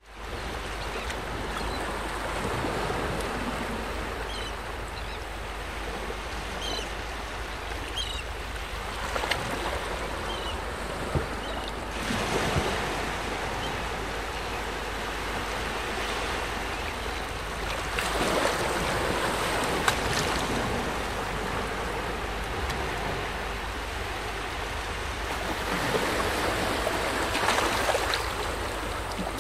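Small waves lapping and washing along the shore of a calm bay, a steady wash that swells louder every several seconds, with a few faint high chirps in the first third.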